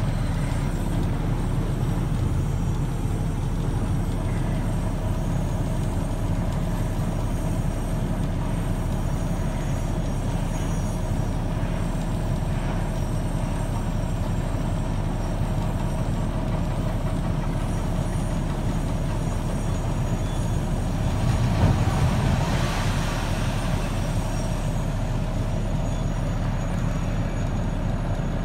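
Heavy hydraulic excavator running steadily as it breaks up a concrete bridge, its diesel engine drone steady throughout. About 21 seconds in the noise grows louder for a few seconds as the demolition work picks up.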